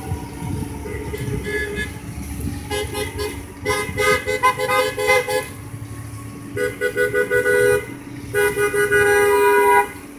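Vehicle horns honking in a string of blasts of different lengths, several short toots and then longer held blasts, the longest near the end, over the steady rumble of passing traffic. A siren's falling wail fades out at the very start.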